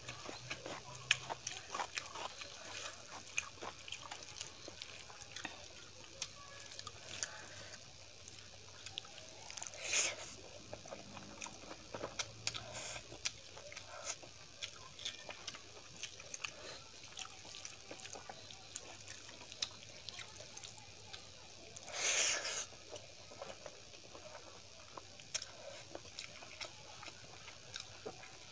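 Wet chewing and lip-smacking of rice and dal eaten by hand: a steady run of short wet clicks and smacks, with two louder bursts of noise about ten seconds and about twenty-two seconds in.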